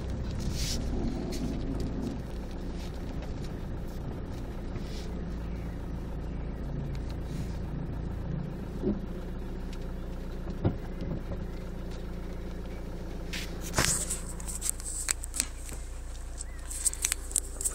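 Car engine idling, heard from inside the cabin as a steady low hum. In the last few seconds there are rustles and clicks as the phone is handled.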